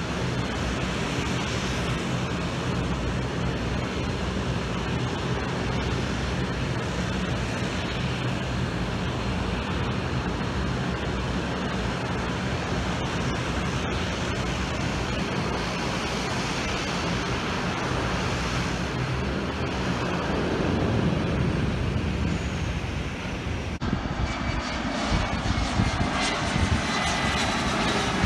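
Turboprop airliner engines running steadily, a constant propeller hum with a rushing noise over it. About 24 seconds in the sound cuts to another aircraft whose engines give a rising whine.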